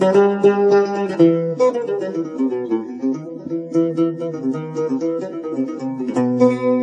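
Instrumental opening of a Kabyle song: plucked string instruments playing a quick, changing melody, settling on a held low note near the end, with no singing.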